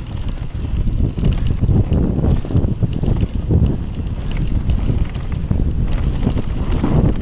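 Mountain bike riding fast down a rough grassy moorland track. Wind buffets the microphone, and the tyres rumble over the ground while the bike rattles in quick irregular clicks.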